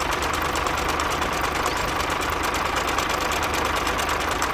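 Small engine of a homemade mini tractor idling steadily, with a fast, even firing rhythm.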